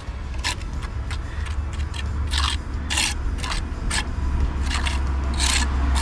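Small steel trowel scraping wet quick-set mortar into a hole in a concrete surface: a run of short, irregular scrapes. A steady low rumble runs underneath.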